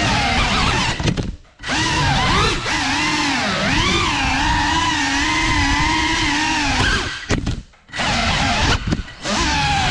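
Electric motors and props of a Cinelog35 cinewhoop FPV drone whining in flight. The pitch swoops up and down with the throttle. The sound cuts out sharply when the throttle is chopped: about a second and a half in, around three-quarters through, and briefly again near the end.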